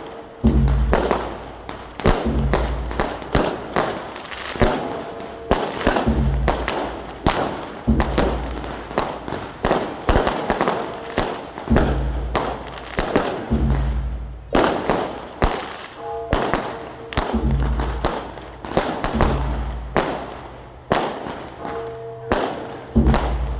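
Fireworks going off in rapid succession: a continuous string of sharp bangs and cracks, several a second, with deeper booms recurring about every two seconds.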